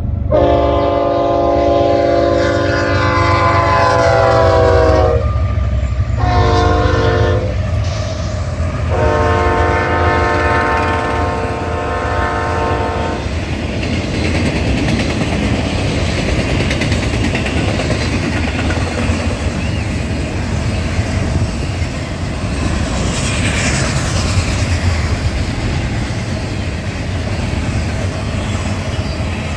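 Diesel freight locomotive's air horn sounding a long blast, a short one and another long one, then a double-stack intermodal train rolling past with a steady low rumble and clickety-clack of wheels on the rails.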